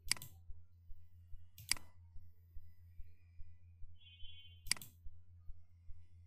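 Three sharp computer mouse-button clicks, spaced about one and a half to three seconds apart, over a low steady hum.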